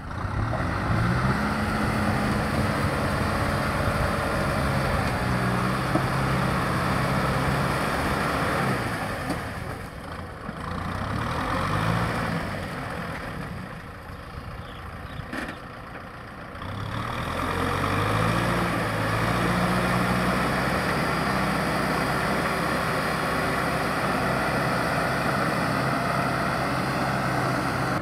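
Kubota tractor's diesel engine running under load as it pulls a rotary tiller through flooded paddy mud. The engine note is steady, drops away twice around the middle, then rises again and holds steady to the end.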